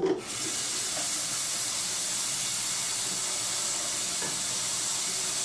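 Tap water running steadily into an empty water bottle, a constant hiss that starts just after the start.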